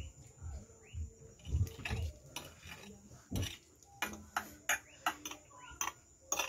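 Metal forks clinking and scraping against plates while noodles are twirled and lifted, a run of sharp clicks through the second half. Chewing and mouth sounds come in between.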